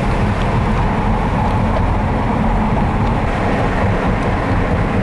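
A car driving through a long rock tunnel, heard from inside the cabin: steady engine and tyre noise.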